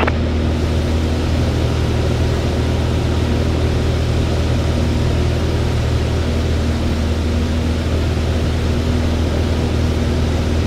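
Van's RV light aircraft's piston engine and propeller droning steadily in cruise flight, heard from inside the cockpit with a steady hiss of airflow over it.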